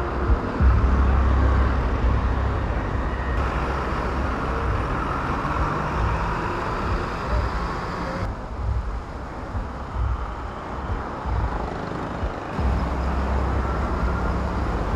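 Steady outdoor background noise with a strong low rumble, like traffic or wind on the microphone. Its character changes abruptly three times, at about 3.5, 8 and 12.5 seconds.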